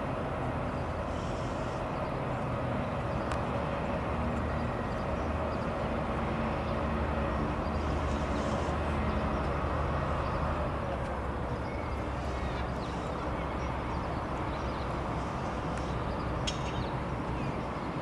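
Freightliner Class 70 diesel locomotive, with its GE PowerHaul V16 engine, running with a steady low drone as it hauls a container train slowly past, the wagons rumbling on the rails behind it. It grows a little louder towards the middle.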